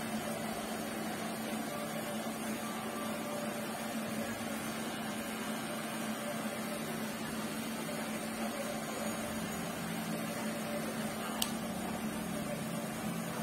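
Cordless electric hair clipper with a guard running steadily as it cuts a fade through short hair, a constant low buzz. One short click near the end.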